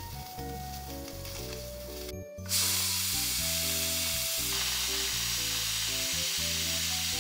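Pressure cooker steam release: about two and a half seconds in, the weight valve is tilted and steam starts rushing out in a loud, steady hiss. Before that, faint crackling from the wet valve.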